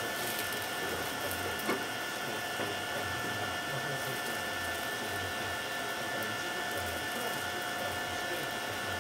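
Steady hiss with several faint, high, steady whining tones, and a single click about 1.7 s in.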